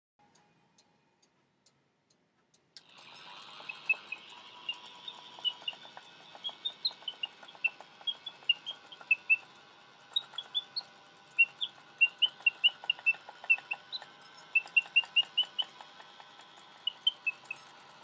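Clockwork singing-bird cage automaton starting up about three seconds in: its bellows-driven whistle gives many short chirps, several a second, over the steady whir of the mechanism. Only the lower of its two bellows works, so the song is incomplete.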